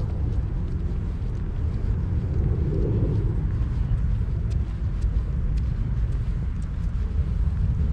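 Steady low outdoor rumble, with faint footsteps on a paved path about every half second.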